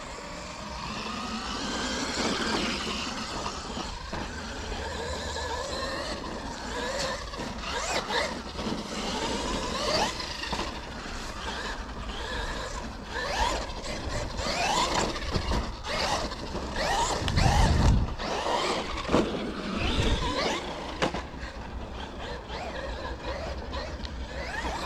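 Traxxas Maxx 4S electric RC monster truck driving and drifting: its motor whine repeatedly rises and falls in pitch with the throttle. Two low rumbles come a little past the middle.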